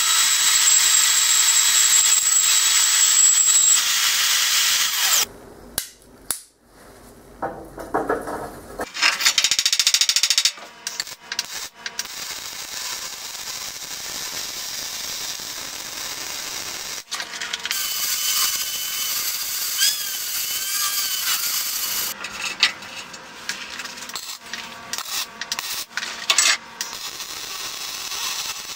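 Vertical band saw cutting a steel plate for about the first five seconds. It then stops, and after a pause a MIG welder's arc runs in short bursts and longer runs with brief breaks.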